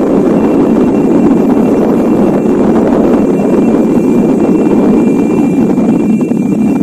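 Ile Lewotolok volcano erupting: a loud, steady rushing rumble as the ash column rises, with a faint high steady tone above it.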